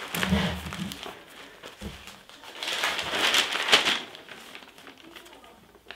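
Newspaper pages rustling and crinkling as the paper is opened out and handled, with a short bout at the start and a louder one about three seconds in that ends in a sharp snap of the paper, then fading.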